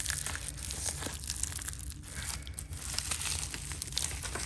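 Small cardboard box being cut and torn open, its packing crinkling, with a scatter of small clicks and scrapes.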